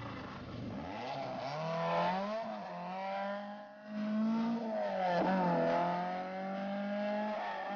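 Peugeot 309 Group A rally car's engine accelerating hard away up the stage, the revs climbing and dropping back twice at upshifts, about two and a half and five seconds in.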